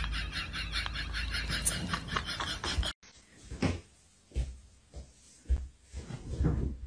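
A busy, fast-repeating crackle over a low rumble, cut off abruptly about three seconds in. It is followed by a few soft thumps and rustles of a cat pouncing and rolling on a bedspread.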